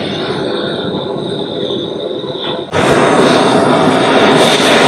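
MAP-gas hand torch flame hissing steadily as it heats a soldered brass toilet flange on a copper waste pipe, getting louder about three seconds in.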